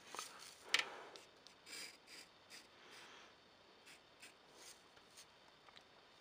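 Graphite pencil scratching faintly across paper in short sketching strokes, the loudest a little under a second in, thinning to a few light taps in the second half.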